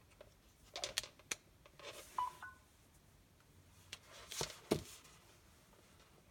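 Magnetic charging cable snapping onto its connector in a Samsung Galaxy S6 Edge+'s charging port with a few sharp clicks, then a short two-note beep from the phone as it starts charging. A second cluster of clicks and handling noise comes from the cable and phone about four and a half seconds in.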